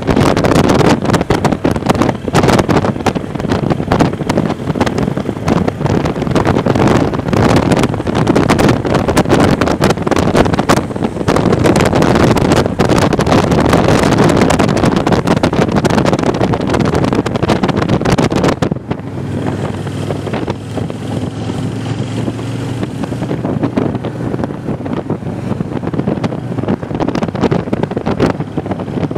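Wind buffeting the microphone on a moving touring motorcycle, over the engine's steady drone. About two-thirds of the way through the wind noise drops off sharply and the engine's low hum comes through more plainly.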